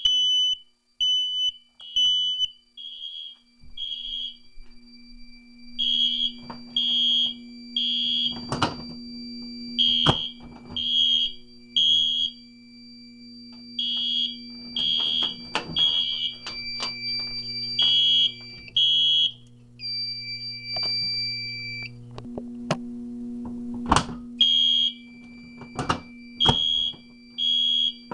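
Smoke alarms sounding: loud, high-pitched beeps repeating about once a second over a steady high alarm tone, which switches to a different pitch for a couple of seconds near the middle. Several sharp clicks or knocks cut in, and a low hum comes in a few seconds in.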